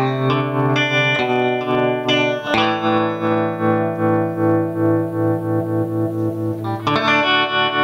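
Guitar played through a Q-Lune tremolo pedal, a clone of the 4ms Tremulus Lune. Notes are picked, then a chord is struck about two and a half seconds in and left ringing while its volume pulses steadily up and down. A new chord is struck near the end.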